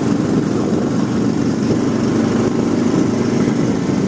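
Motor vehicle engine running steadily while under way, heard from on board.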